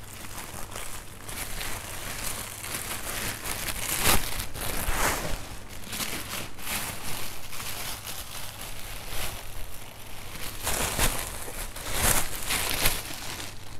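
Clear plastic bags crinkling and rustling as shoes wrapped in them are handled and pulled from a pile. The crinkles are irregular, with louder bursts about four seconds in and again near the end.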